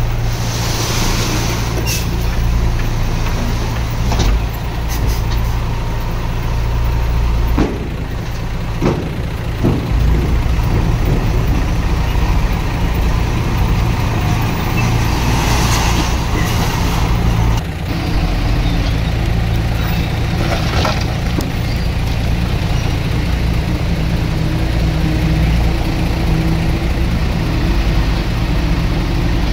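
Heavy diesel earthmoving machinery running steadily under load, with a few sharp metal knocks partway through. Short bursts of air hiss come near the start and again about halfway.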